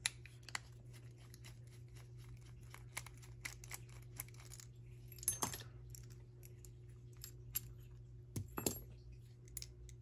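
Small metallic clicks and scrapes of a steel tool working in the bottom of a brass Abus 83/45 Iron Rock padlock as the key-retaining feature is worked loose, with two louder scrapes, one about halfway through and one near the end.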